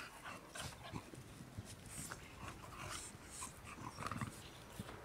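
Chow Chow dogs, one a young puppy, play-fighting: quick, irregular panting breaths mixed with short scuffles.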